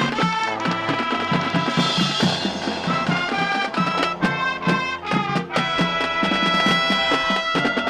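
High school marching band playing: brass and woodwinds over a drumline with a steady beat.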